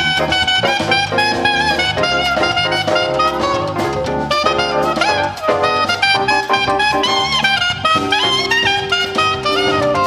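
Jazz-style show music with horns over a steady drum beat.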